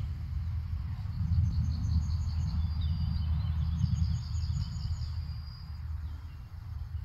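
A small songbird sings two short, fast trills of repeated high notes, about a second in and again near the middle, over a steady low rumble.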